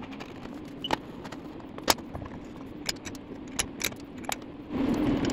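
Light clicks and clinks, about six spaced across a few seconds, as a wooden hammer-holder disc is handled and set onto a steel anvil stand, over a steady low hum. A louder rushing noise comes in near the end.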